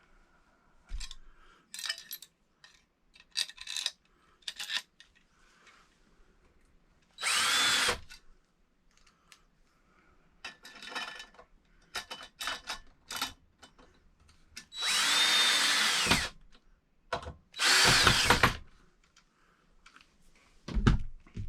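Power drill driving screws in three short runs of about a second each, the motor speeding up and then winding down each time, with scattered clicks and knocks of handling between; the outlet box is being fastened to the wall.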